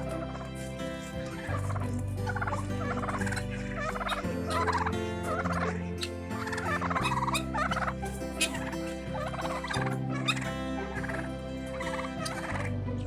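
Turkeys gobbling, with repeated warbling calls one after another.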